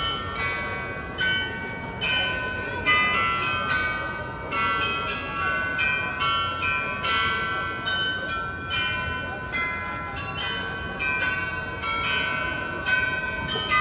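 The Munich Rathaus-Glockenspiel, a carillon of 43 bells, playing a tune. Its bell notes are struck about twice a second, each ringing on under the next.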